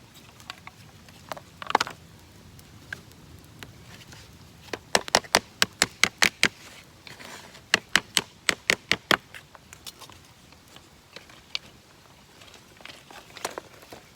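A tent peg being hammered into hard, rocky ground: two runs of sharp, quick metallic strikes, about three or four a second, with a few single knocks around them.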